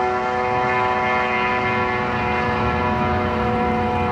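Drag-racing snowmobile engine held at full throttle, a loud, steady high-pitched note that barely changes pitch as the sled runs down the strip at about 130 mph.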